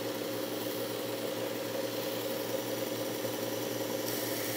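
Work Sharp Ken Onion Edition knife sharpener with the Blade Grinding Attachment running steadily, its coarse 120-grit belt grinding the steel spine of a paring knife down to re-form a broken tip. A steady motor hum under an even grinding hiss that turns a little brighter about four seconds in.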